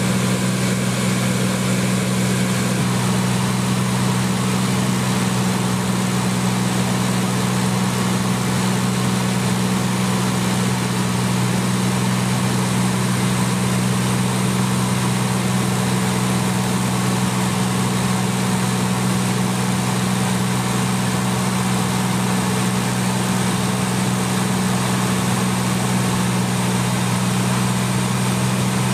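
Steady machine drone with a strong low hum and an even hiss, unchanging throughout.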